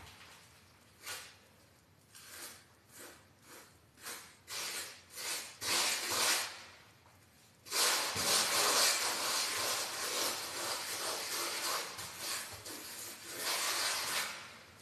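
Hand float rubbing over fresh fine finishing plaster on a wall: a run of short, separate scraping strokes, then continuous rubbing from about eight seconds in.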